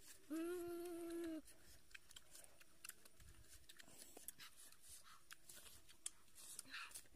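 A boy's hummed 'mmm' of relish while eating: one steady held note lasting about a second near the start. Faint scattered clicks and mouth sounds of eating follow.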